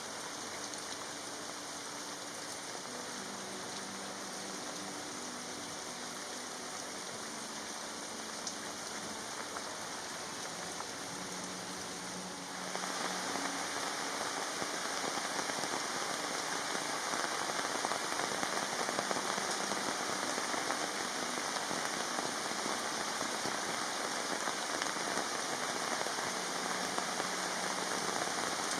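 Heavy monsoon rain falling in a steady, dense hiss, growing louder and heavier about 13 seconds in.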